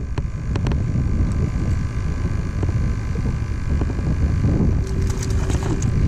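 Steady low rumble of a small fishing boat on the water, with a few light clicks and knocks about half a second in and again near the end.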